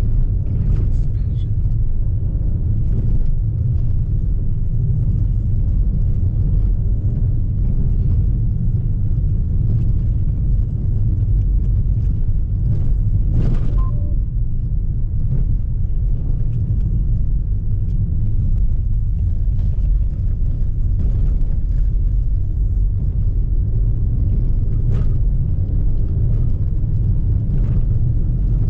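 Citroën C4 driving over rough grass and a dirt track, heard from inside the cabin: a steady low rumble from the tyres, suspension and engine, with occasional short knocks and rattles over bumps.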